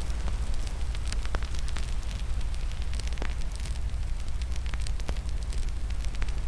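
Fire in a fireplace crackling, with frequent sharp pops and snaps scattered through a steady low rumble.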